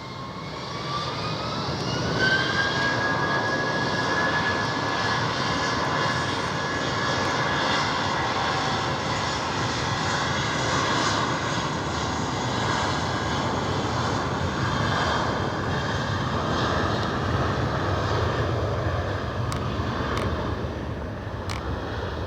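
Twin-engine jet airliner at takeoff thrust. A high whine rises in pitch over the first couple of seconds, then settles into a loud, steady engine roar.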